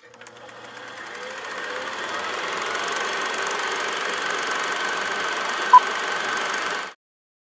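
Old film projector running, a steady mechanical clatter that fades in over the first two seconds and cuts off abruptly near the end. A short high beep sounds once, about a second before it stops.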